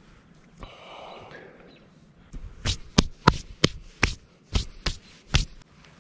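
Hands slapping and brushing together a dozen or so times in quick, irregular succession to knock dirt off after baiting a hook with a worm. A soft rustle comes before the slaps.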